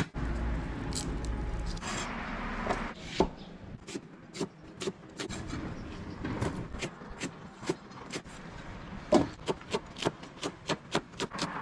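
Cleaver knocking on a thick wooden chopping block while garlic, onion and chili peppers are cut. The strokes are scattered at first, then come quickly, about four a second, near the end.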